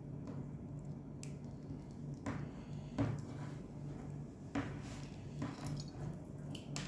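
Faint, scattered clicks and rustles of hands working a UTP network cable while preparing its end for an RJ45 plug, over a steady low hum.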